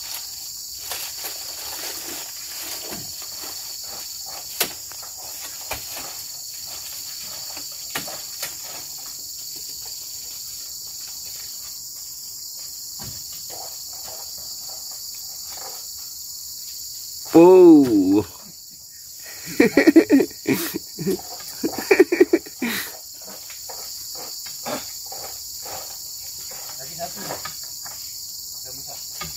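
Steady high insect chorus of crickets or cicadas, with scattered light knocks. A little past the middle, a loud wavering call, then a couple of seconds of loud voices.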